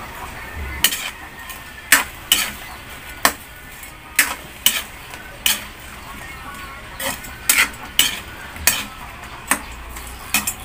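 Long-handled metal spatula stirring and turning shrimp in a wide metal wok, scraping and clinking against the pan a dozen or so times at uneven intervals. Under it the butter-garlic sauce sizzles steadily.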